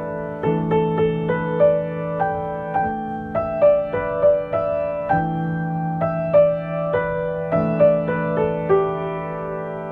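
Background solo piano music, an improvised piece: a slow melody of single notes over sustained low chords that change every couple of seconds.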